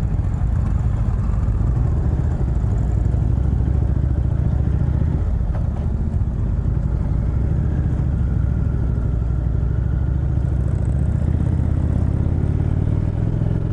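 A 2018 Indian Chieftain's V-twin engine running steadily while the motorcycle is ridden, with rushing wind.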